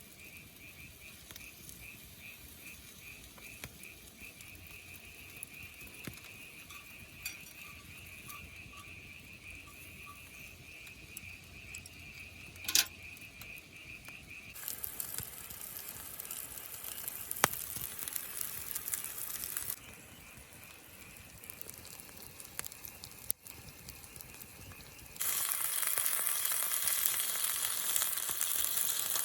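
Food sizzling in a pan over a campfire. The sizzle starts suddenly about halfway through, falls back for a few seconds, then comes back louder near the end. Before it there is steady rhythmic insect chirping, about two chirps a second, with one sharp click.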